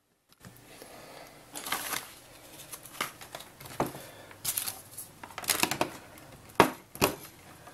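Small parts being handled on a workbench: irregular clicks, light knocks and rustling, a dozen or so scattered through, over a faint low hum.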